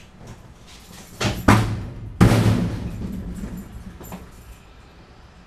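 A heavy glass-front snack vending machine being tipped back for moving, its metal cabinet knocking twice and then landing with a loud bang that rattles and rings on for about two seconds.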